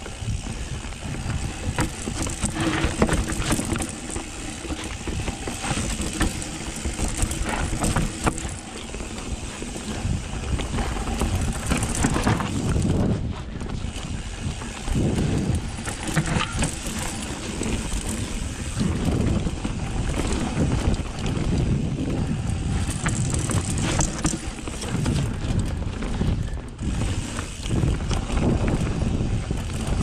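Mountain bike descending a steep dirt trail: tyres on dirt and a continuous rattling clatter from the bike over rough ground, with a rumble that swells and fades.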